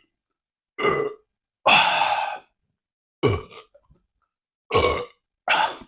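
A man burping five times in a row, short separate burps with silence between them. Some drop in pitch; the second is longer and breathier, like a sighing exhale.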